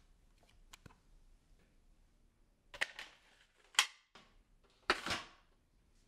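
Hard plastic parts of a Dyson V11 cordless vacuum clicking and clacking as it is handled at the wand joint: a couple of faint clicks, then three sharp knocks about a second apart.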